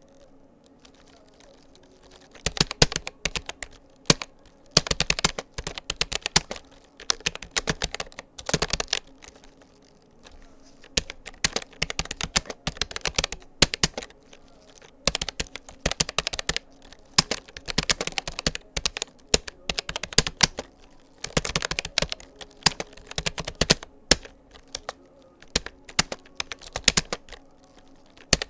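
Typing on a Rapoo computer keyboard: rapid clicking keystrokes in bursts of a second or two with short pauses between, starting about two seconds in.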